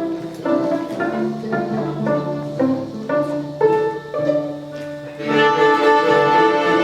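Beginner string ensemble, mainly violins, bowing a simple tune in short, separate notes. From about five seconds in the playing turns fuller and louder on held notes.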